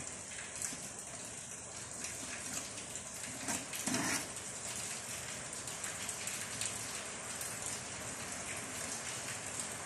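A steady hiss with a brief louder rustle about four seconds in.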